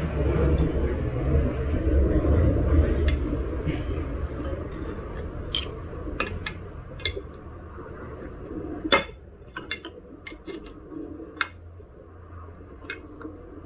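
Small metal tools clinking and tapping against metal parts while working on an electric unicycle's wheel during a tyre change, with one sharp knock about nine seconds in. A low rumbling, rubbing noise fills the first half and dies away by the middle.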